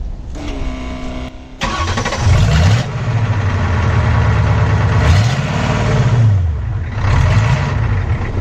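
Ford 6.9L diesel V8 engine running while a newly installed clutch and transmission are tested in gear. A tone sounds first, then about a second and a half in the engine gets suddenly louder, and its speed rises and falls several times.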